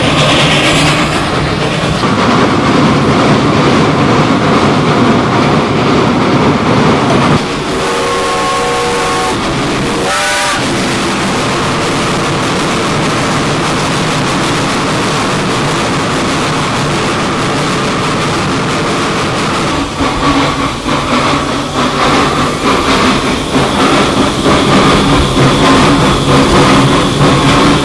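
Baldwin cog steam locomotive, Pikes Peak Cog Railway's Engine #4, working with steam and mechanical running noise. About eight seconds in its steam whistle sounds a held chord for about two seconds, then a short toot that rises in pitch. In the last third rapid, rough exhaust beats and clatter come in.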